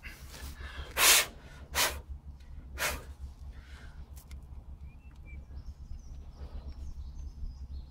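Three short scraping noises from hand tools being handled at a bolted steel base plate, over a low steady rumble. Faint bird chirps in the second half.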